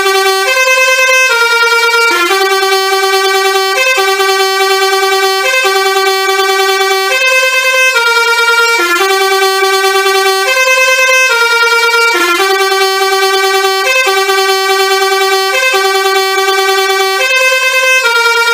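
Telolet horn, the multi-tone musical bus horn, playing a tune of stepped notes without a break, the same short phrase coming round again and again.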